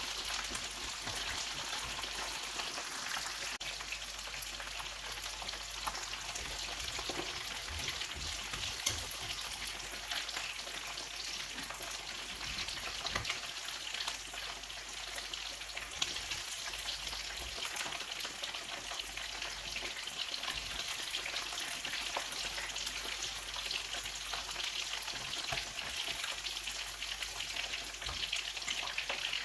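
Food deep-frying in hot oil: a steady, dense sizzle with scattered small pops and crackles.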